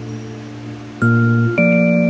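Background music, a gentle pitched melody: a held chord fades away, then new notes start at about one second and again about half a second later.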